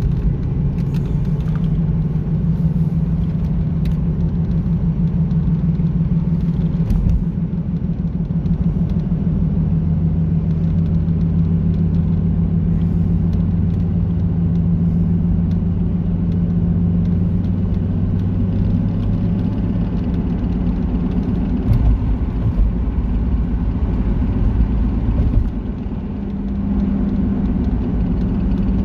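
2001 Ford Mustang driving, heard inside the cabin: a steady low engine hum with road noise and a few thumps from bumps. The engine sound dips briefly near the end, then picks up again.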